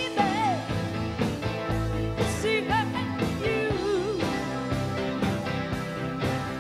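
Rock band playing: electric guitar, drums and keyboards, with a woman's lead vocal wavering with vibrato over the top.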